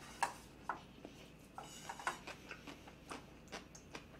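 Wooden chopsticks clicking and scraping faintly against a pot of ramyeon as noodles are picked up: a dozen or so light, irregular taps.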